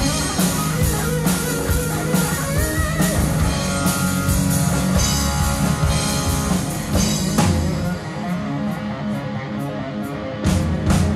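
Live rock band playing: electric guitar and bass guitar over a drum kit. About eight seconds in the music thins out and gets a little quieter, with sharp cymbal-like hits near the end.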